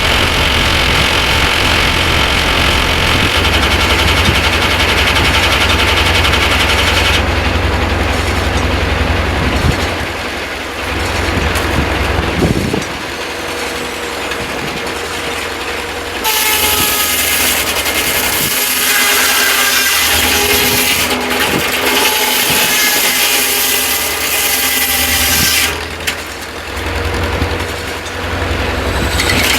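Corley 395 circular sawmill running under power while sawing a log, with an engine running underneath. The sound changes in stretches: a loud high-pitched whine for the first several seconds, a lower, rougher stretch in the middle, and the high whine again from about halfway until a few seconds before the end.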